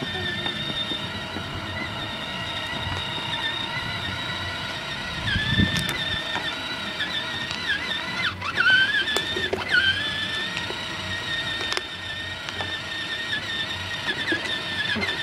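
Electric motor and gearbox of a child's battery-powered ride-on toy ATV whining steadily at a high pitch as it drives along, the pitch dipping briefly twice a little past the middle.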